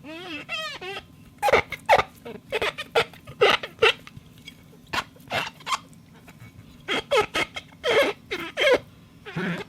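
Squeaking glass made to mimic animal voices: a warbling squeal at the start, then a run of short squeaks and yelps of shifting pitch, with a brief pause past the middle.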